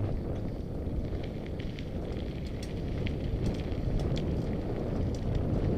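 Mountain bike rolling along a dirt singletrack, with a steady rumble of wind and riding noise on a helmet-mounted camera's microphone and many small scattered clicks and crackles throughout.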